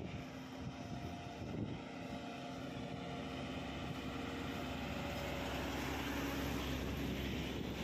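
Loaded Tata Signa heavy trucks running past on a highway, their diesel engines droning steadily. The low rumble swells in the second half as a Tata Signa 5530.S tractor-trailer passes close.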